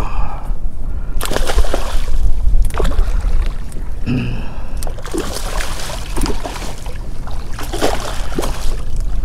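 A hooked red drum thrashing and splashing at the water's surface beside a kayak, in several irregular bursts, over a steady low rumble of wind on the microphone.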